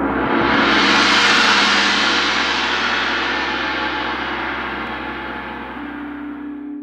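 A gong swelling up over the first second and then slowly fading. Near the end, a steady singing-bowl tone comes in.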